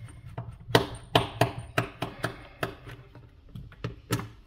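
A quick run of sharp clicks and taps from hands handling a plastic dock casing and a small screwdriver on a silicone work mat. The taps are loudest about a second in, and a few more come near the end.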